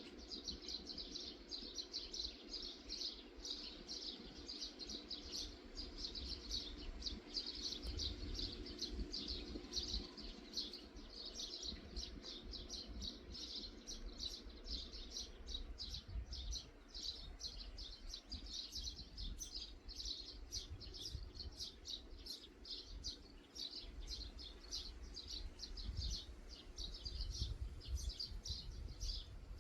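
Many small birds chirping continuously, quick overlapping high-pitched calls, with a low rumble underneath.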